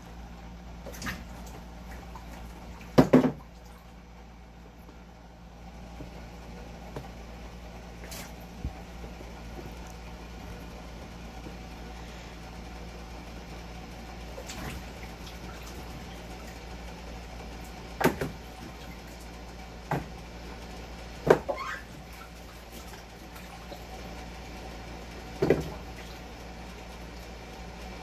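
Beets being handled in a stainless kitchen sink full of water: water sloshing and splashing, with half a dozen sharp knocks and splashes of beets against the steel and into the water. The loudest comes about three seconds in. A steady low hum runs underneath.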